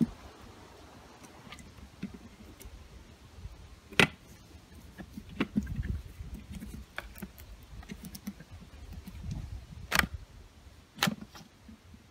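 Hands taking apart a plastic upright vacuum cleaner, its motor off: a few sharp plastic clicks and knocks, the loudest about four seconds in and another about ten seconds in, with rubbing and bumping between.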